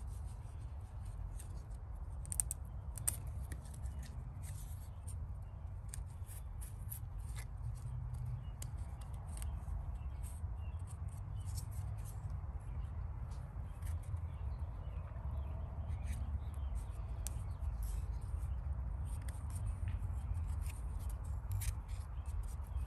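A blade cutting and scraping away a ring of bark on an ambarella (cóc) branch to girdle it for air-layering: many small irregular scratching clicks over a steady low rumble.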